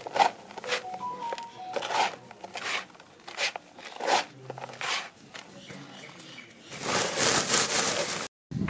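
Hands scooping and crumbling a gritty granular mix on a sheet: a run of irregular crunchy scrapes and rustles. Near the end a longer, louder rustle as a woven sack is swung past.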